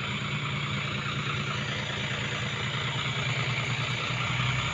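Dump truck's diesel engine running steadily with an even low hum.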